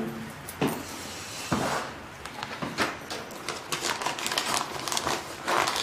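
Office desk work: sheets of paper rustling and being handled, with light taps and clicks scattered throughout.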